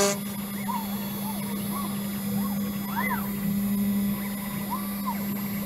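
CNC router spindle running with a steady hum while its 1/8-inch two-flute end mill cuts letters into fibreboard; the axis motors add short whines that rise and fall in pitch several times as the head moves between cuts.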